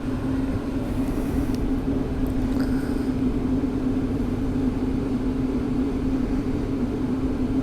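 Wind and road rumble on a helmet-mounted microphone while riding an electric bike, with a steady low hum throughout.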